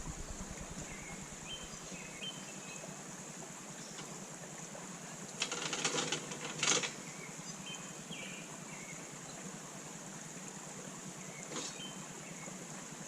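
An engine running steadily at idle, with a brief cluster of clattering knocks about halfway through and a single knock near the end.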